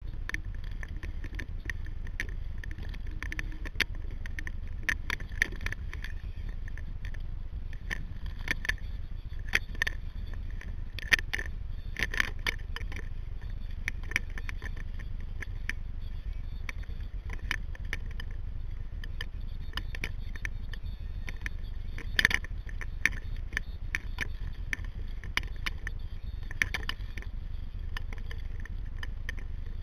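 Sea kayak under way: irregular small knocks and splashes of water against the hull and paddle, over a steady low rumble like wind on the microphone. The loudest knock comes about two-thirds of the way through.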